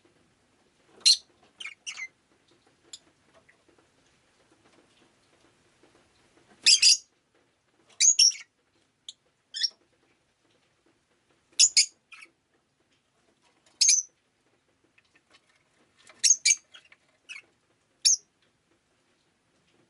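Rosy-faced lovebird giving short, shrill chirps, some single and some in quick pairs, with pauses of a second or two between them.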